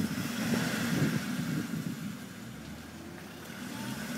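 Land Rover Discovery 4x4's engine running as it crawls through deep muddy ruts, easing off and getting quieter about halfway through.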